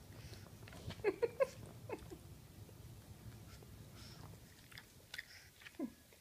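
Pug puppy licking and chewing at a coconut and its straw: short mouth sounds, three in quick succession about a second in and a few more near the end, over a faint low hum.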